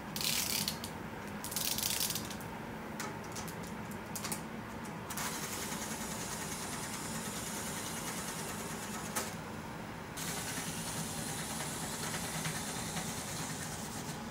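Small motorised LEGO Technic rack vehicle running, its gears clicking over the studs of the track as a steady whirring rattle, with louder rattling bursts in the first two seconds.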